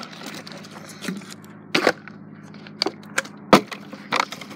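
A plastic water bottle being flipped and landing on a hard surface: several sharp knocks and clatters, the loudest about two seconds in and twice more near the end.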